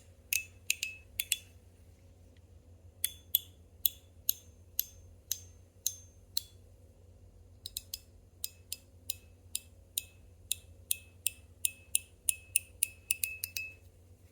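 Stainless steel fidget slider (ACEDC PBTS) being slid back and forth, its plates snapping into place with sharp metallic clicks that ring briefly. The clicks come in runs of about two a second, with short pauses between runs.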